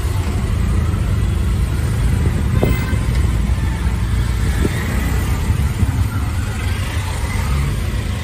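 Auto-rickshaw ride in slow traffic, heard from inside the open cab: a steady low engine and road rumble with surrounding traffic noise.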